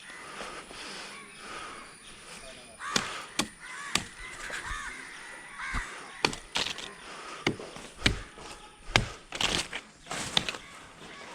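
Crows cawing several times, mixed with irregular sharp knocks and clacks.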